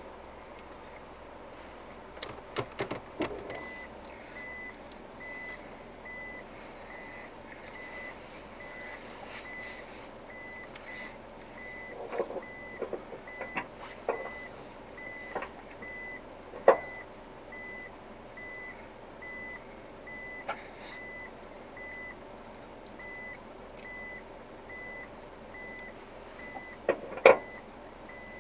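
A vehicle's electronic warning chime beeping at one steady pitch, evenly spaced, starting about three and a half seconds in and going on throughout. Scattered sharp knocks and clunks come over it, the loudest two about two-thirds of the way through and near the end.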